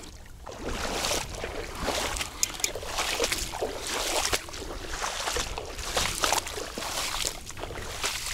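Irregular splashing and swishing of shallow, grassy water as a hooked northern snakehead is dragged through it toward the bank, over a low wind rumble on the microphone.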